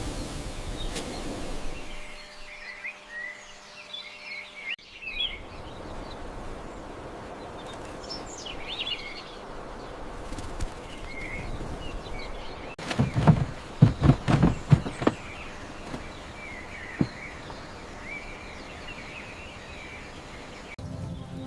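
Birds chirping on and off over a steady outdoor background hiss. About two thirds of the way through comes a quick run of loud knocks, the loudest sound here.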